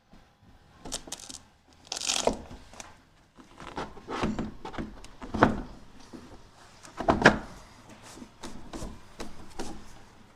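Irregular knocks, bumps and scraping as a glass sliding-window panel is handled and fitted into the frame's head and sill tracks, with the loudest thuds about two, five and seven seconds in.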